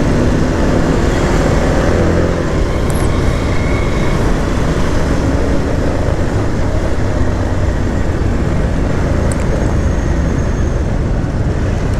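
A vehicle running on a road in traffic: a steady engine and road rumble with wind noise on the microphone.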